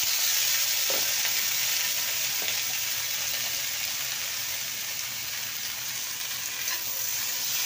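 Diced raw potatoes frying in hot oil in a wok, freshly added: a loud, steady sizzle that eases slightly over the seconds.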